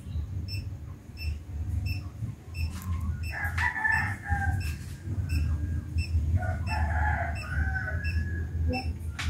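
A rooster crowing twice, about three seconds in and again near seven seconds, over a steady low rumble and a faint regular tick about twice a second.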